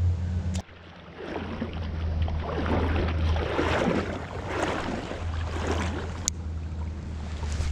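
Wind buffeting the microphone with a steady low rumble, over the rushing, burbling flow of creek water that swells and eases.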